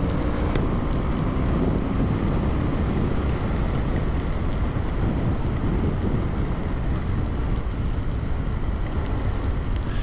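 Steady wind noise buffeting the microphone: a low, even rumble with no breaks.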